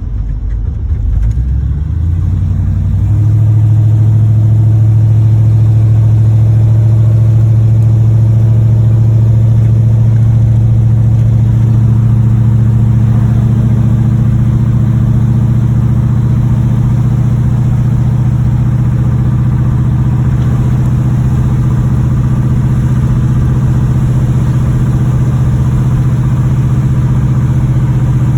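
A 1986 Chevrolet Monte Carlo SS's V8 picks up speed over the first three seconds or so, then runs at a steady cruise. The engine has a knocking bottom end from a bad rod bearing.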